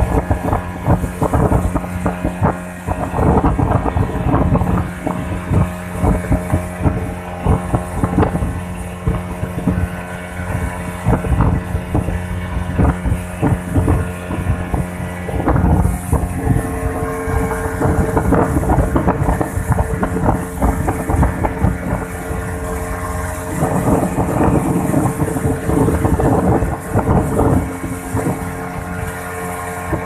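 Small motorboat's engine running steadily under way, its note shifting about halfway through, with the hull knocking irregularly on the chop and wind on the microphone.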